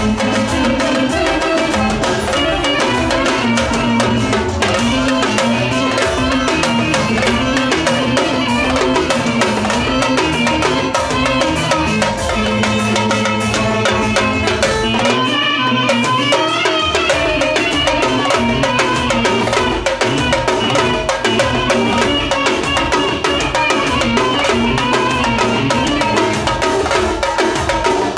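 Live band music: a clarinet playing a melody over a steady drum beat. The deep bass drops out briefly about halfway through.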